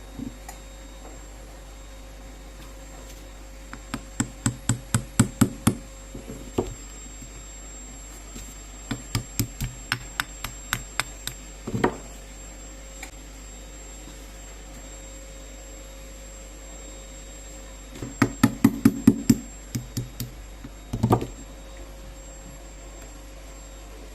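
A small hammer tapping on metal in three quick runs of light blows, about four taps a second, each run lasting two to three seconds.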